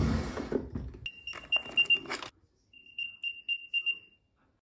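A wooden drawer sliding open, then an Apple AirTag on a key ring playing its find-me sound: a run of quick high-pitched beeps with keys clinking as they are picked up, and a second run of beeps after a short pause. The AirTag is pinging because Siri was asked to find the keys.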